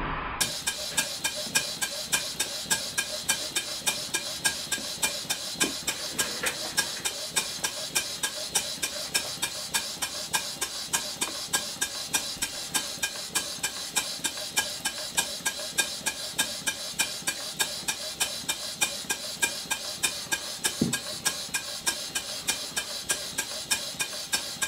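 Stuart 5A single-cylinder double-acting model steam engine running steadily, with an even exhaust beat of about two to three strokes a second, its valve timing freshly reset so both ends of the stroke are even.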